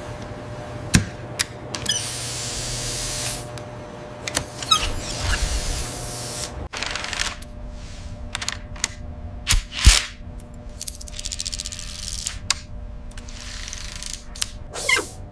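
Mechanical tool and machinery sounds: scattered sharp clicks and clanks, and several hissing bursts each lasting a second or so, over a steady hum. The loudest is a heavy knock about ten seconds in.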